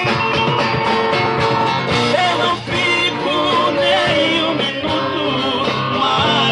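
Live band music: an instrumental passage of the song, a wavering melodic lead line over bass and drums.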